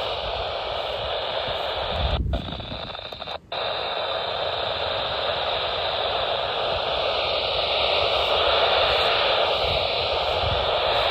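Radio receiver giving out steady static hiss on a weak, poorly received signal. The hiss cuts out briefly twice, about two and three and a half seconds in.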